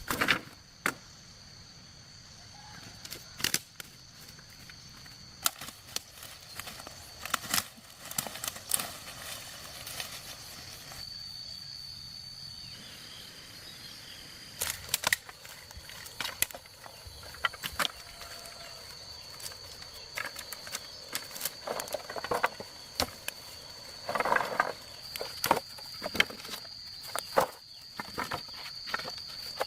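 Irregular sharp knocks and taps, some single and some in quick clusters. A steady high-pitched tone comes in about eleven seconds in and holds.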